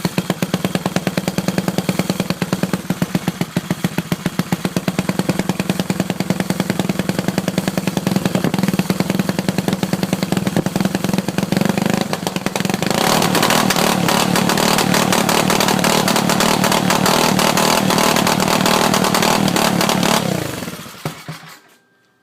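Whizzer bicycle motor, a single-cylinder four-stroke, running with even firing pulses, then throttled up about thirteen seconds in, where it skips and sputters instead of pulling cleanly: a misfire under throttle whose cause the owner has not found, the main jet and float already ruled out. Near the end it is shut off and winds down to a stop.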